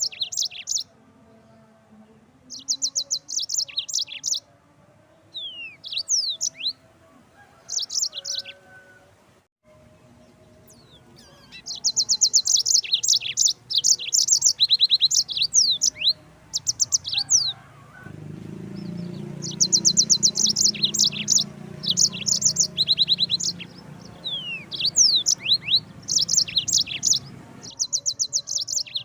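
Yellow-fronted canary (Mozambique canary) singing: phrases of fast, high rattling trills mixed with quick down-slurred notes, each a second or two long with short pauses between. A low steady rumble runs underneath for about ten seconds in the second half.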